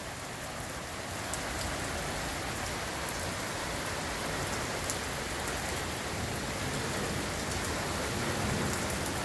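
Heavy rain pouring down steadily, a dense even hiss with a few sharper drop hits scattered through it.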